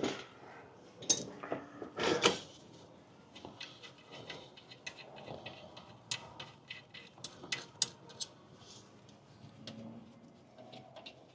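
Metal clinks and knocks of hand tools and parts during front brake disassembly, with the caliper coming off. Two louder knocks about a second and two seconds in, then a scatter of light, sharp clicks.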